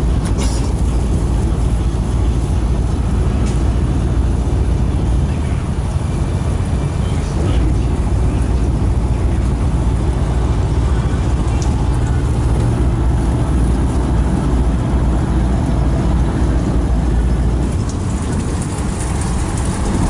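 Steady low rumble of a moving "Moskva" river passenger boat: engine drone mixed with wash and wind noise.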